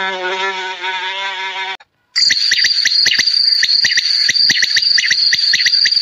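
A pitched droning hum cuts off about two seconds in. After a brief gap, a loud, shrill insect trill starts, cricket-like, with a rapid run of ticking pulses.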